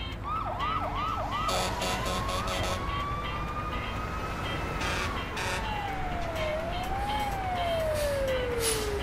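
Fire truck siren: four quick yelps, then a long wail that slowly rises and then falls away, with one brief upward turn on the way down.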